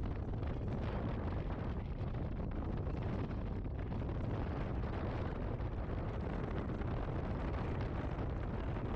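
Steady rumble and wind buffeting from a moving truck, with the wind hitting the microphone at the open side window. The noise holds even throughout with no breaks.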